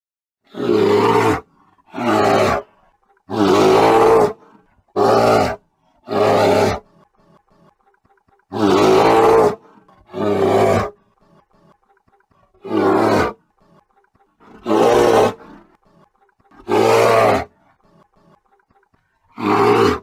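Grizzly bear roaring: about eleven separate rough roars, each lasting under a second to about a second and a half, with short pauses between them.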